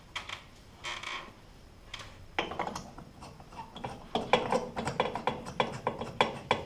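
Light bulb being screwed into a ceiling light fixture's socket: a run of quick scraping clicks as the bulb's base turns in the threads. The clicks start a couple of seconds in and grow denser and louder toward the end.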